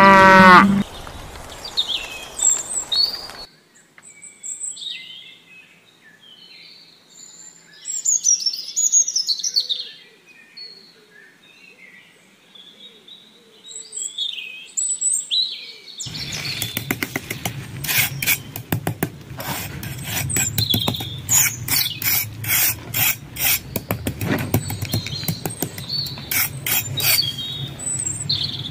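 A cow moos once at the very start, then scattered bird chirps and tweets follow. From about halfway a busier stretch of rapid short clicks or taps over a low hum joins the birdsong.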